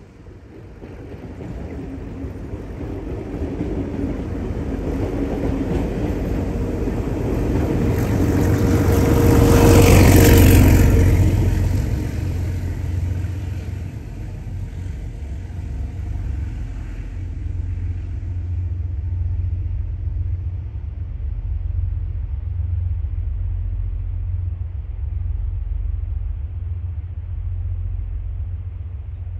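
A passenger train running past on a curve as it climbs a grade. The sound of its wheels and carriages grows to its loudest about ten seconds in as the rear of the train goes by. After that a steady low rumble from the working locomotives carries on as the train draws away.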